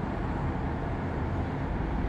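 Distant steady roar of a Boeing 757-200's two Pratt & Whitney PW2000-series turbofans at takeoff power during the takeoff roll, heavy in the low end.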